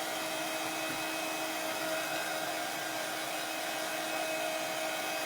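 Handheld electric dryer running steadily, a constant blowing whoosh with a low hum, drying freshly brushed craft paint.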